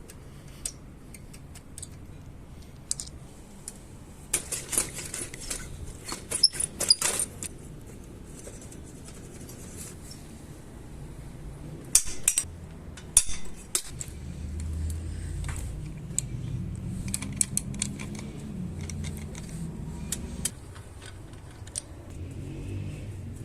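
Metal parts and tools clinking and clattering as they are handled, in clusters of sharp clinks, over a low steady hum that swells for several seconds past the middle.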